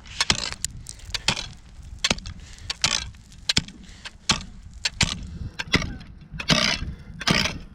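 Steel ice spud bar striking lake ice over and over, sharp chopping impacts about two a second with a few longer crunches near the end. The ice is solid enough that the bar does not break through, a sign of good thick ice.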